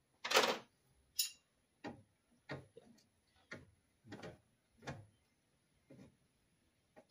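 Hand wrenches being worked on the AC line fittings: a series of short knocks and clicks about every two-thirds of a second, with a longer, louder one just after the start.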